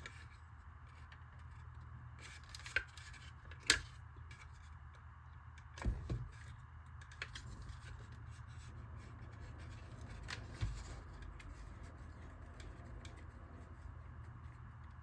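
Small screws being driven into a plastic RC car body with a small screwdriver, with a few scattered sharp clicks and taps of tool and parts, the loudest about four and six seconds in, over a steady low hum.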